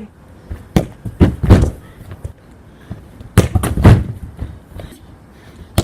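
A football being kicked and thudding against hard surfaces: two clusters of sharp thuds, one about a second in and another about three and a half seconds in.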